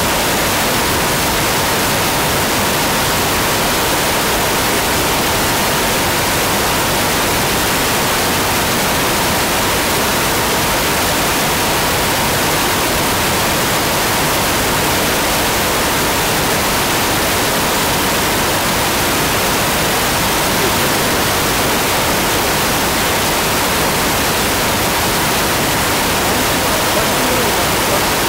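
Loud, steady static hiss, even from low to high pitches and unchanging in level, with a faint steady tone running through it.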